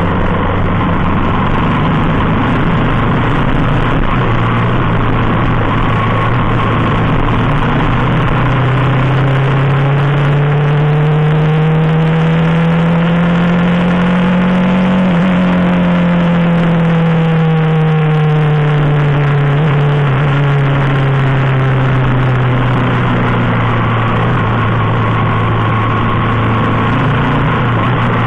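Motorcycle on the move: a steady rush of wind and road noise, with the engine's pitch rising gradually as it speeds up, then falling slowly as it eases off.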